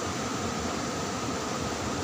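Steady rushing of a flowing river current, an even noise without breaks, with a faint steady high tone in the background.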